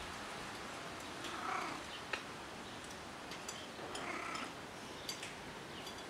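Stray cat making two short, soft calls about two and a half seconds apart, over a steady background hiss, with a sharp click about two seconds in.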